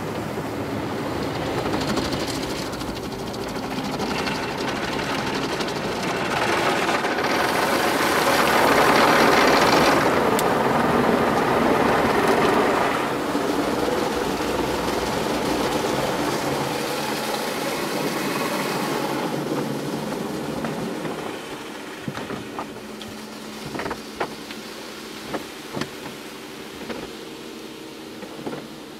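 Automatic car wash heard from inside the car: water spray and brushes sweeping over the body and windscreen. It is loudest about a third of the way through, then eases off to scattered taps and drips near the end.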